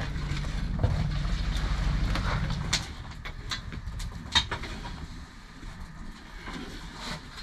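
A low, steady machine hum that dies away about three seconds in, with sharp knocks and clicks scattered throughout.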